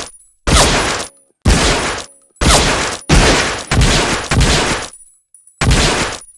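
Automatic pistol firing in single shots: six sharp shots spaced unevenly, from about half a second to two seconds apart, each dying away quickly.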